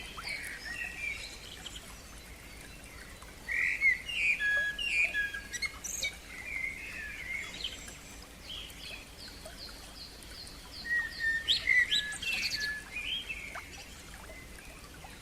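Songbirds singing, with several birds' whistled notes and trills overlapping and louder song phrases about four seconds in and again near twelve seconds.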